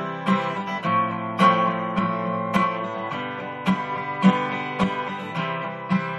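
Acoustic guitar strummed in a steady rhythm, about two strums a second, with the chords ringing on between strums.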